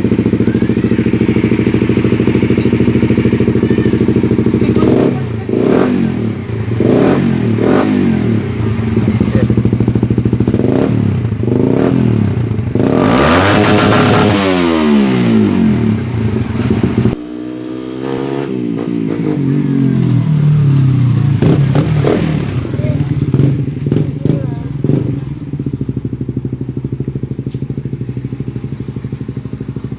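Suzuki GSX-S150's single-cylinder engine running through an Akrapovic aftermarket exhaust: idling, then revved in repeated short blips, with one long high rev about halfway. After an abrupt cut it is blipped a few more times and settles back to a steady idle.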